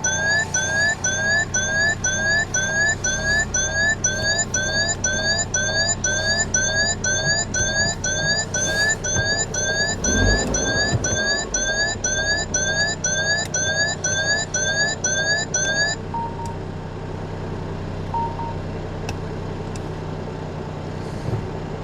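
Peugeot 5008's electronic sounder giving a fast run of short rising chirps, about two and a half a second, which stops suddenly about sixteen seconds in. A steady low hum carries on underneath and remains after the chirps stop.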